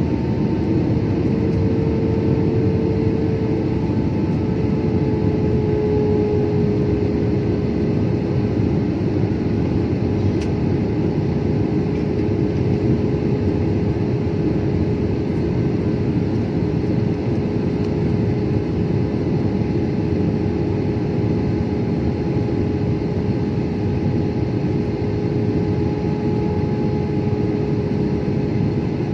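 Jet airliner cabin noise on landing approach: the steady rush of the engines and airflow heard through the fuselage, with a steady engine hum that settles slightly lower in pitch about four seconds in.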